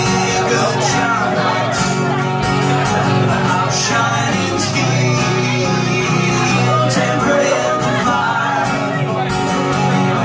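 Live acoustic duo: two guitars strummed together, with a man singing into a microphone over them.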